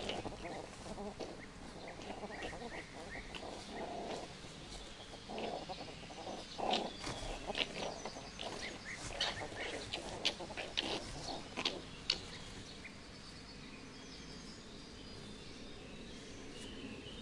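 Fox cubs squabbling over a bird carcass, with short yelps, chattering calls and scuffling. It goes quieter in the last few seconds.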